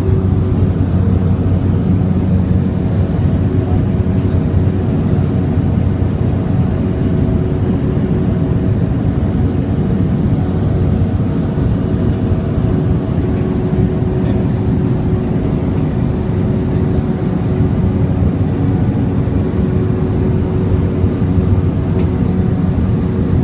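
Small propeller airplane's engines running at a steady, even power: a loud, unchanging drone with a steady hum in it.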